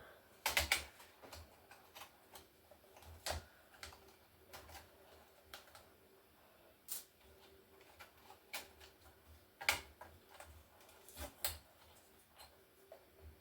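Irregular clicks, taps and knocks of laptop casing and internal parts being handled and worked loose by hand, with a few sharper knocks among lighter ticks.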